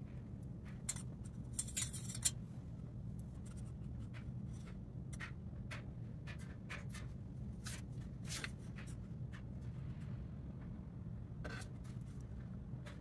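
Light clicks and scrapes of a probe thermometer and spoon against a stainless steel pot of melting wax, with a brief cluster of louder clicks about two seconds in, over a steady low hum.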